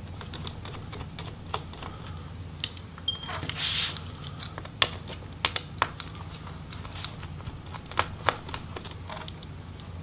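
Small precision screwdriver clicking and tapping on the tiny logic board screws and metal case of a MacBook Pro A1398 as the screws are backed out: scattered sharp clicks, with one brief rasp about three and a half seconds in.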